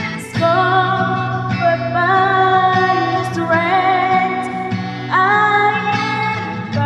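A woman singing long, held notes of a slow worship song over instrumental accompaniment, with a new phrase starting near the beginning and another about five seconds in.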